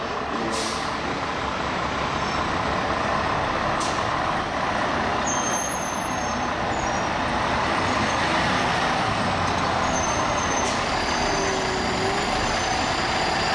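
Fire engine's diesel engine running loudly as the truck pulls out of its station, with a few short hisses of its air brakes.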